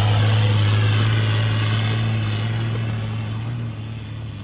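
A four-wheel-drive wagon's engine pulling uphill at a steady low drone, fading as it drives away up a steep gravel track.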